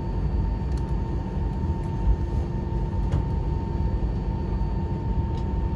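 Airbus A319 cabin noise while taxiing: a steady low rumble from the engines and rolling gear, with a steady high whine running through it and a few faint rattles.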